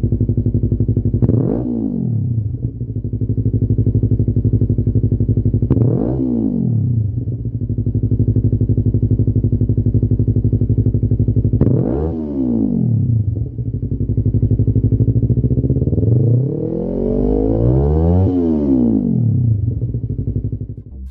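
Yamaha YZF-R3's 321 cc parallel-twin engine running through a Lextek OP1 full exhaust system, idling steadily. It is blipped three times, about five to six seconds apart, each rev rising and falling quickly back to idle. Near the end it is revved for longer, about three seconds, climbing higher before settling back to idle.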